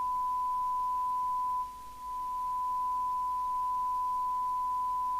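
Steady high-pitched single-note test tone from a Binatone Route 66 FM CB radio's loudspeaker: the signal generator's modulation tone as demodulated by the receiver. About a second and a half in it dips sharply, then swells back over the next second as the FM detector is adjusted.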